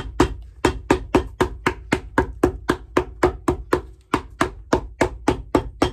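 Cobbler's hammer rapidly tapping cork filler flat on the bottom of a welted shoe, even taps about five a second with a brief pause about four seconds in.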